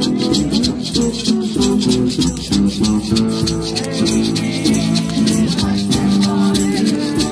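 Live acoustic sing-along: voices singing over a strummed acoustic guitar, with hand shakers rattling in a quick steady rhythm.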